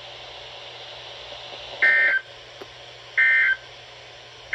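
NOAA Weather Radio SAME end-of-message code: short, shrill data bursts, two about 1.4 s apart with a third starting at the very end. They mark the close of the broadcast weekly test.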